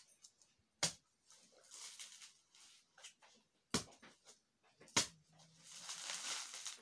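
A long curved knife blade striking a whole coconut three times, each blow a sharp knock, with softer rasping between the blows and a longer stretch of it after the last.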